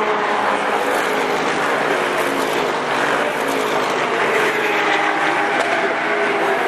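GT race cars passing one after another along the straight at speed, their engines' pitch falling as each goes by.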